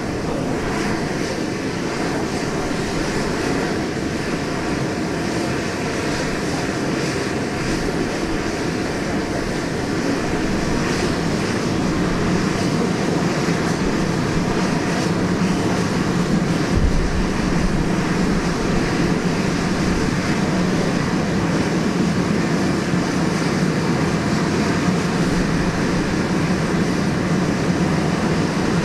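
Steam locomotive sounds from a GWR 94xx large pannier tank working slowly around the yard: a steady hiss and rumble of steam. About a third of the way in, a low steady drone comes up and stays.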